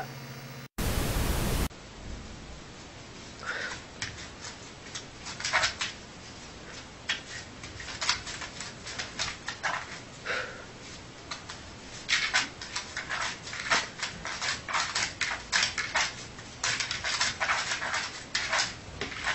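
A dog dreaming on its back, its legs paddling against a wall: repeated light scratches and taps of claws on the wall, coming thicker in the second half, with a few brief soft whimpers. A short hiss sounds about a second in.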